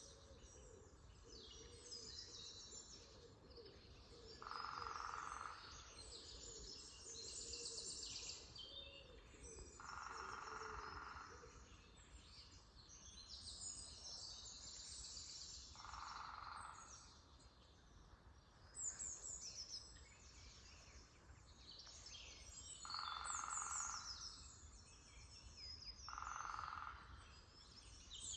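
Songbirds singing in an early-spring forest in the morning: many overlapping chirps and song phrases. Five short, lower bursts of about a second each recur through the chorus over a faint low background rumble.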